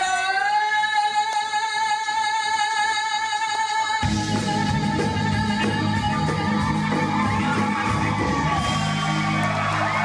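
A woman's voice holds one long high note over near-quiet accompaniment. About four seconds in, the full band comes in at once with guitars, bass and drums beneath the singing.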